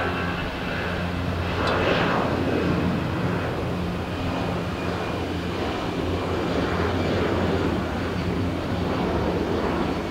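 Airliner engines running: a steady noise with a low hum throughout, swelling slightly about two seconds in.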